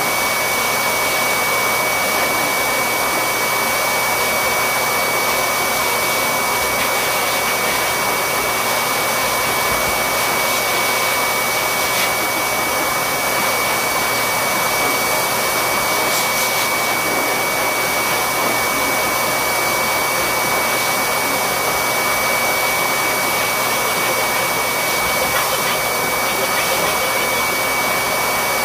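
Electric pet grooming clippers running steadily, a constant motor whir with a thin high whine over a steady hiss, as they cut a Yorkshire terrier's coat.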